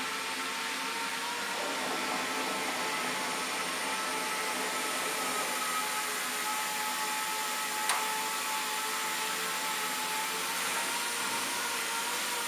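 CNC router spindle running steadily while routing a board, a high whine over a steady hiss. A brief click sounds about eight seconds in.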